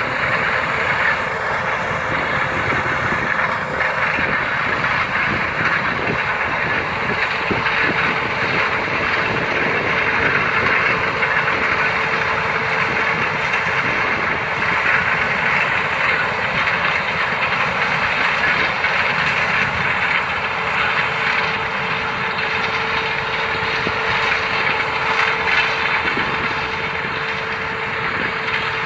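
Claas Lexion combine harvester running while harvesting maize: a steady rushing drone from its engine and threshing machinery, with a faint constant whine.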